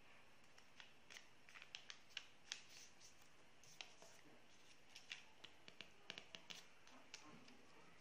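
Faint crackling and small sharp clicks of origami paper being folded and creased by hand, coming in two bunches of quick clicks, one in the first few seconds and one a little past the middle.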